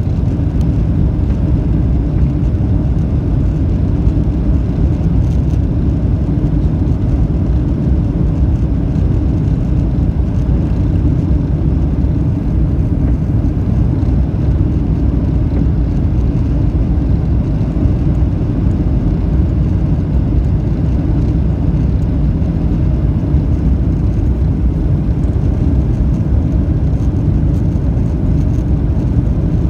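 Steady low rumble of jet engines and rushing air heard inside the cabin of a Boeing 737 airliner descending on final approach with its flaps extended.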